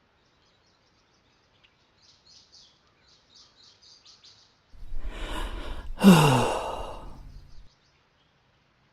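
Faint high chirps, then a rush of noise about five seconds in that leads into a loud sigh falling in pitch and fading out.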